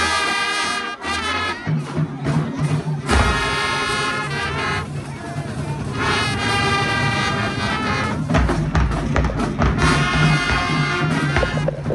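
Marching band playing in the stands: the brass horns sound full held chords in repeated blasts over a steady low bass line and drums.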